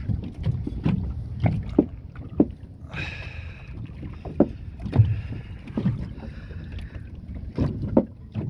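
Irregular low knocks and thuds against a fiberglass boat hull, about ten of them, over a light rush of wind on the microphone.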